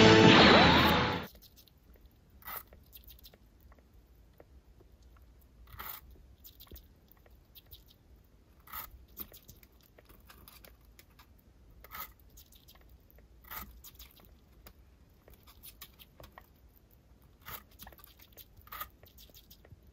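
Sugar glider biting and chewing pieces of apple: small crisp crunches at irregular intervals of one to three seconds. Music cuts off about a second in.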